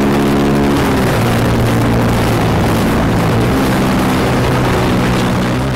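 Motorcycle engine running steadily while riding along a road, its note shifting slightly about a second in, under a constant rush of wind and road noise.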